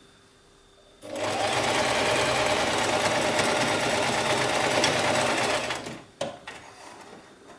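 Singer domestic sewing machine running steadily at speed, stitching a zigzag side seam through jersey fabric, starting about a second in and stopping after about five seconds. A few light clicks and knocks of handling follow.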